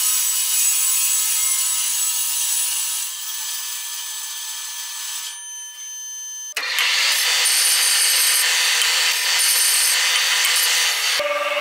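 A metal-cutting bandsaw cutting through steel pipe, a steady noise that eases as the blade finishes the cut. About six and a half seconds in it gives way suddenly to a louder abrasive grinding of the cut pipe end on a grinding machine.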